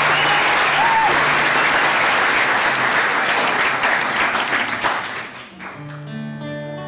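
Audience applauding, with a short whistle about a second in; the clapping dies away about five seconds in. Then acoustic guitar notes begin to ring out.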